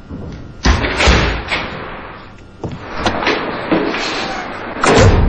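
A run of knocks and thuds with scuffling between them, loudest about two-thirds of a second in, again a second in, and near the end.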